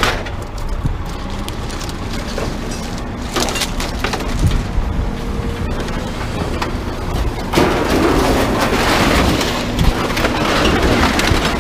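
Truck driving with a steady low rumble, its load rattling and knocking. About seven and a half seconds in, a hiss of road and wind noise swells and stays louder.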